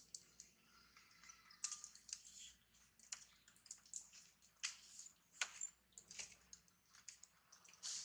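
Faint, scattered sharp clicks and crackles, several at irregular intervals, over a quiet background.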